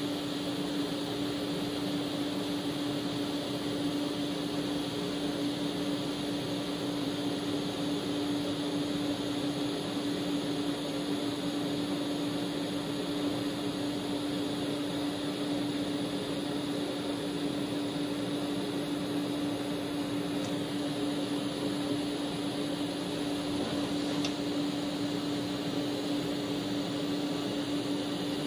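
TIG welding arc burning steadily along an exhaust seam, joining a canister inlet to a megaphone cone: an unbroken hiss with a steady buzzing hum.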